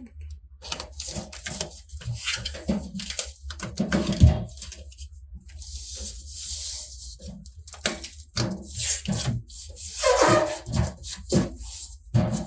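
Irregular handling noises of a foam sound-damping sticker: rustling, rubbing and light knocks, with a longer hissy rustle in the middle.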